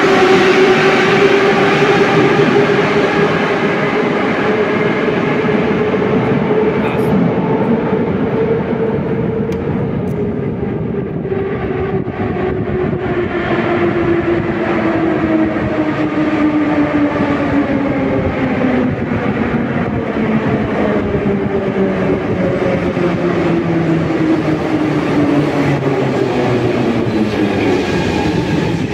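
Moscow Metro train running through a station: wheel-on-rail rumble with the whine of its electric traction motors falling slowly in pitch as the train slows.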